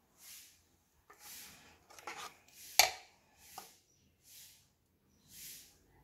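A metal spoon scraping and clinking in a mixing bowl of batter as batter is scooped out, with one sharp clink a little before the middle and a smaller one after it. Behind it, a soft hiss comes back about once a second.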